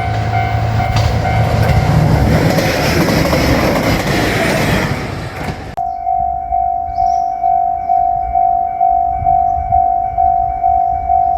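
Japanese railroad crossing bell ringing steadily about twice a second while a diesel railcar passes with engine hum and wheel clatter. The train noise cuts off suddenly about halfway through, leaving the crossing bell ringing alone.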